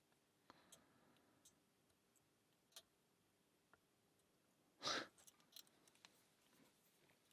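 Faint, sparse clicks of a small metal lock pick working inside a padlock, with one short, louder breathy rush about five seconds in.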